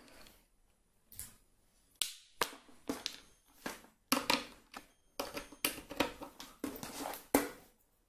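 Handling noise from a tablet and USB cables: a dozen or so irregular clicks, knocks and rustles as the devices are picked up, moved and set down.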